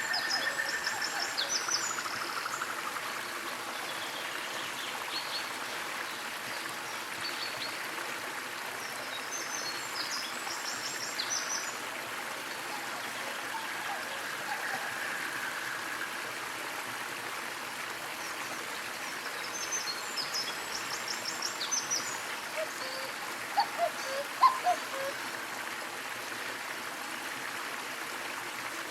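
Small waterfall splashing steadily, with birds calling over it. A high twittering phrase comes back about every ten seconds, and a few short, louder, lower calls come about two-thirds of the way through.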